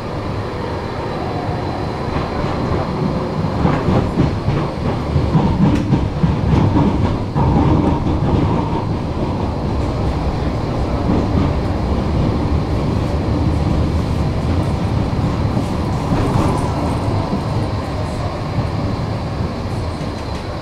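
Tram running along its track, heard from aboard: a steady rumble of wheels on rail, with a run of clicks over rail joints in the first half and a faint steady high whine.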